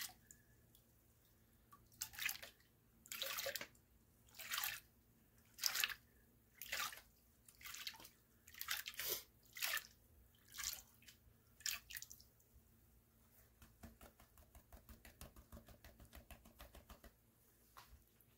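Plastic gold pan dipped and sloshed in a tub of water, a splash about once a second for some ten seconds, then a quicker, softer run of small water sounds. This is dirt being washed off a pan of black-sand concentrate.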